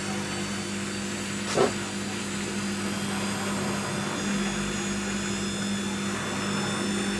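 Washing machine running its spin, with a steady motor hum and a high whine whose pitch begins to rise near the end as the drum speeds up. A single short knock comes about a second and a half in.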